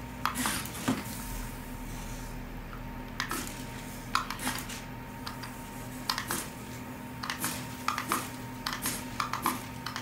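Light, irregular clicks of buttons being tapped on the handheld remote of an Air Swimmers remote-control flying shark, over a steady faint hum.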